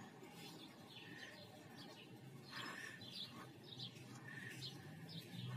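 Faint small-bird chirps: many short, quick, downward-sliding high notes, repeated irregularly throughout.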